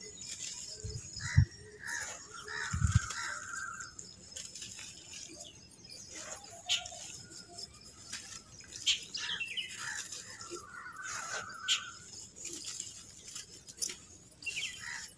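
Dry clods of sandy red dirt crumbling in the hands, with grit crackling and pattering down into a shallow puddle of water, and two dull thumps in the first three seconds. Birds chirp a few times in the background.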